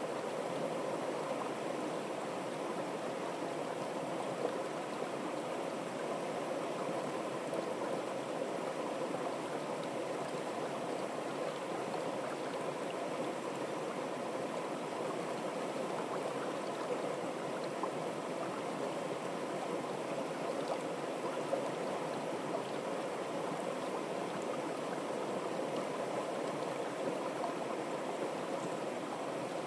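Water pouring over a small stepped weir into a churning pool: a steady, even rushing and splashing.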